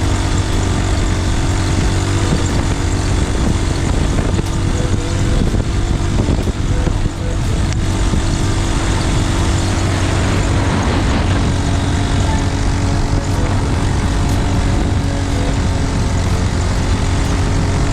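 A motor vehicle's engine running steadily: a constant low hum under a broad rushing noise.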